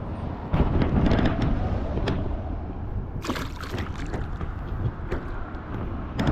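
Wind buffeting the microphone over the noise of river water, with a few sharp clicks and a brief louder rush about three seconds in.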